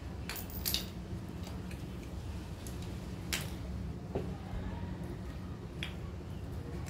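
Plastic parts of a soda-fountain valve being handled and pulled apart on a tiled floor: about five scattered clicks and knocks over a low steady hum.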